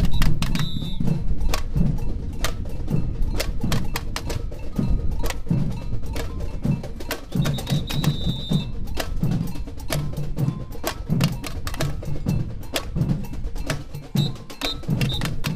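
Samba bateria (street samba percussion band) playing a groove: low drum hits under a dense rattle of sharp tamborim and metal-percussion strokes. A high, steady whistle sounds briefly near the start, for about a second a little before the middle, and twice near the end.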